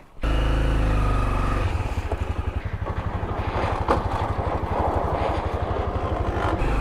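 Honda CRF250L's single-cylinder engine idling, with a steady, even low thumping.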